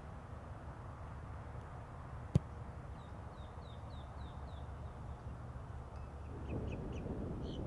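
A single sharp thud of a kicker's boot striking an American football, about two and a half seconds in. Afterwards a bird chirps in a quick run of about six short notes, then again near the end, over steady outdoor background noise.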